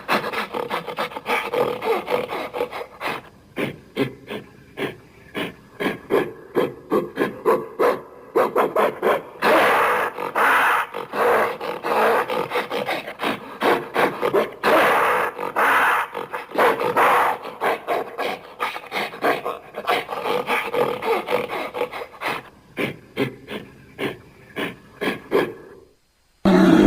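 An animal vocalizing in a long run of rapid, rhythmic grunts, with louder stretches about ten and fifteen seconds in.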